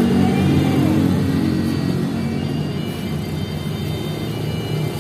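Bus engine running as it goes by, a deep rumble that slowly fades, with faint high steady tones over it.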